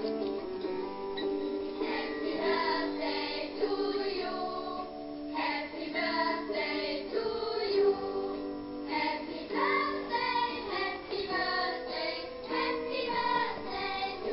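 Birthday music: a song with singing over instrumental accompaniment, the voice coming in about two seconds in.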